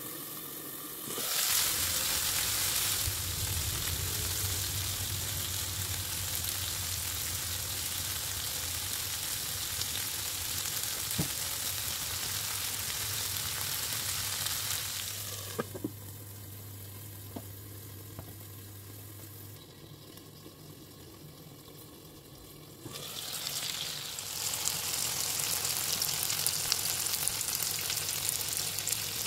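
Food sizzling as it fries in oil in a pan, with a few light clicks. About halfway through the sizzle drops to a faint hiss for several seconds, then comes back loud.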